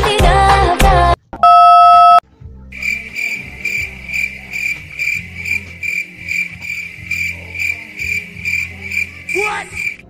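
A second of music with singing, cut off by a loud steady electronic beep lasting about a second. Then a steady high insect chirping, about two chirps a second, heard through the thin sound of a keypad cellphone's recording.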